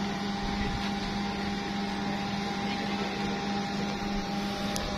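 Steady electrical hum: a constant low tone with a thinner, higher tone above it, over a bed of hiss.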